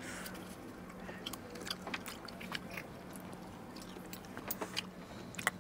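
People eating snails and shellfish: scattered light clicks and taps of shells and spoons, with chewing, over a steady low hum.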